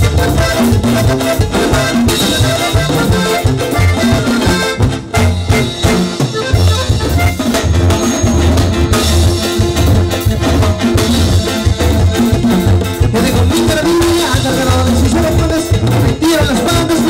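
Live norteño banda cumbia: accordion, sousaphone, guitar, drum kit and congas playing together over a steady pulsing bass beat. The bass drops out briefly about five seconds in, then the groove comes back.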